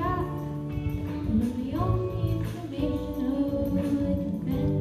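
A boy singing into a handheld microphone over a backing track with a steady beat.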